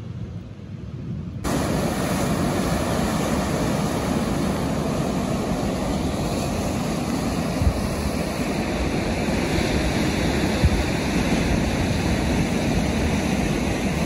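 Sea surf washing over a boulder shore, with wind blowing on the microphone: a steady, loud rushing that starts abruptly about a second and a half in, after a quieter opening.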